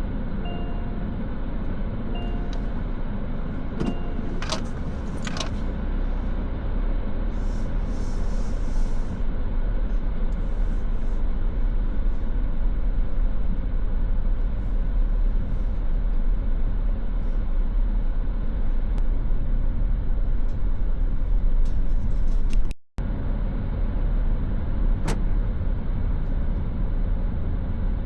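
Mazda3's 1.5-litre four-cylinder and its tyres running steadily on the road. A few short electronic beeps, about a second and a half apart, sound in the first few seconds.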